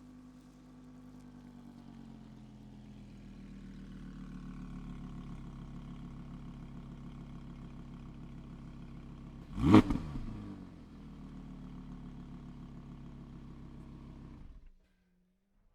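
Audi R8 engine idling while stationary, with one quick, loud throttle blip about ten seconds in that rises and falls straight back to idle. The sound stops abruptly near the end.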